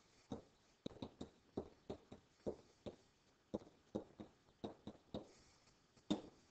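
Stylus tapping and knocking on a digital writing surface during handwriting: a dozen or so short, irregular taps.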